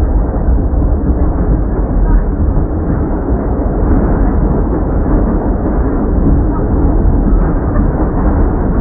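New York City subway train running, a loud steady low rumble of wheels and motors with no distinct knocks or tones.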